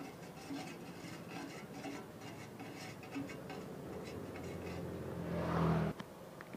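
A plastic spoon scraping and clicking around a thin aluminium pot as paste is stirred into oil, in short irregular strokes. Near the end a louder rushing noise swells and cuts off suddenly.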